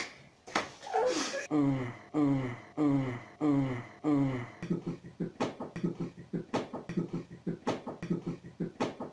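A sharp hand slap of a high-five, then men laughing hard in a run of evenly spaced, falling 'ha' bursts, turning into quicker, lighter laughter about halfway through.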